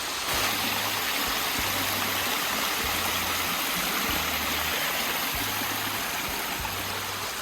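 Steady rush of flowing water from a stream, stepping up slightly in level just after the start.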